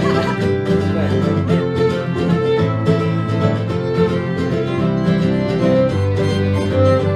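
Acoustic bluegrass band playing an instrumental passage: banjos and acoustic guitar picking under a fiddle line.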